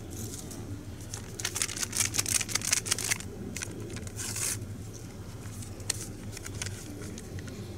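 Hot cocoa mix packet crinkled and torn open: a run of crackling rustles from about one and a half to three seconds in, then a short tearing rustle a little after four seconds.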